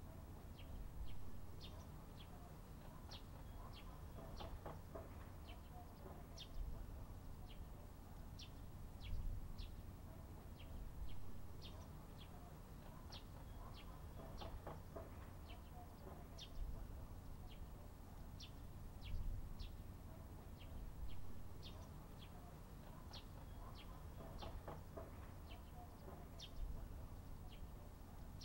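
Small birds chirping in quick, short, high calls over a low outdoor rumble, with a longer, lower call about every ten seconds.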